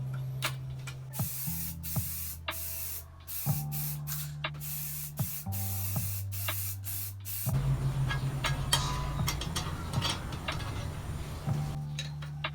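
Aerosol spray paint can sprayed in a series of short hissing bursts, then a rougher, fuller noise for about four seconds, over quiet background music.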